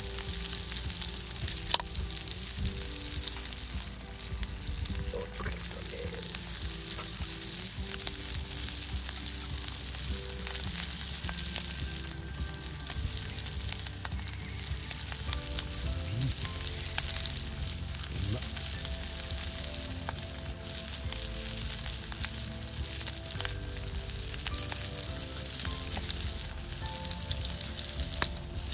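Horumon (offal) sizzling and frying in a black iron skillet over a wood fire, with occasional light clicks of long metal chopsticks turning the pieces.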